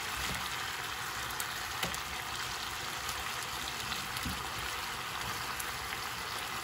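Chicken drumsticks frying in butter and their own juices in a nonstick pan, a steady sizzle as they brown. A plastic slotted spatula gives a faint click or two while it turns them.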